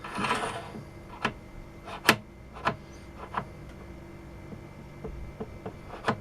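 Workshop handling noises: a brief scraping rustle, then a series of separate sharp clicks and knocks of parts and tools being handled at the lathe, over a faint steady hum.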